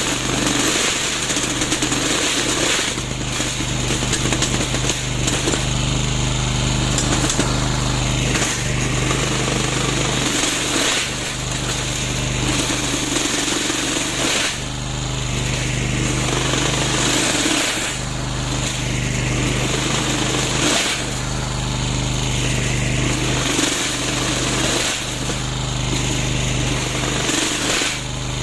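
Home-built remote-controlled lawn mower running steadily, a constant hum with brief dips every few seconds.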